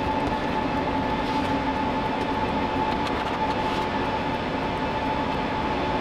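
Steady whir of rack servers' cooling fans, with a constant high-pitched hum over the rushing air. A few faint clicks come from the metal rack rails being handled.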